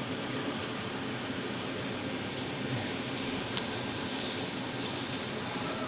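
Steady hiss and hum of background room noise, like a fan or air conditioner running, with one faint tick about three and a half seconds in.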